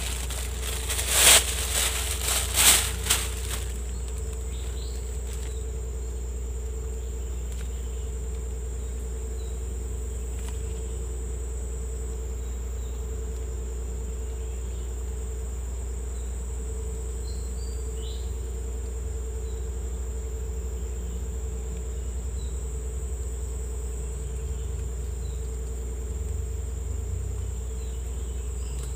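A plastic bag crinkles a few times in the first few seconds. After that, insects drone steadily at a high pitch, with a second, lower steady tone beneath.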